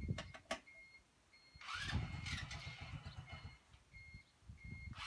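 Hunter 200 buggy's 200 cc engine cranking on the electric starter in bursts without catching. Cranking pauses about a second in, runs again for about two seconds, and starts once more near the end. A short electronic beep repeats through it, less than a second apart.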